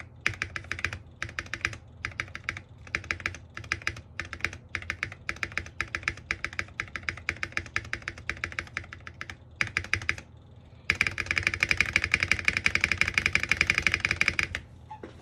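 Typing on an NJ68 Max mechanical keyboard with foam under the plate, around the switches and in the bottom of the case: irregular bursts of keystrokes with short pauses. After a brief pause about two-thirds in comes a louder, fast, continuous run of keystrokes that stops shortly before the end.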